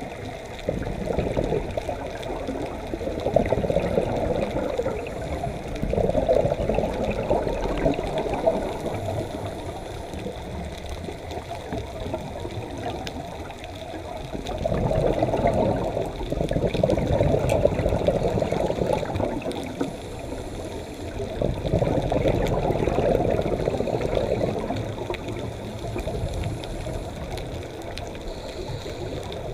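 Underwater bubbling and rushing from scuba divers' regulators as they exhale, swelling and fading in waves every several seconds.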